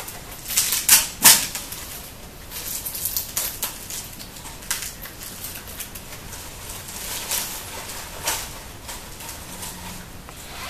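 Artificial pine sprigs and berry picks rustling and clicking as they are handled and set into a floral arrangement: a few sharp clicks in the first second or so, then lighter, irregular crackling.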